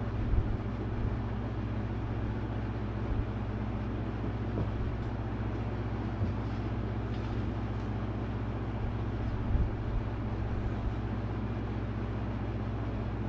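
Steady low electrical hum and hiss of room background noise, with a few soft knocks as plastic model horses are handled and set down on the cloth-covered table.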